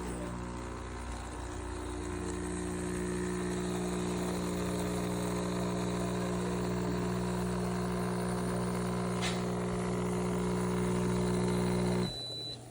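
Espresso machine's pump buzzing steadily for about twelve seconds, then cutting off suddenly, with a short high tone just before it stops.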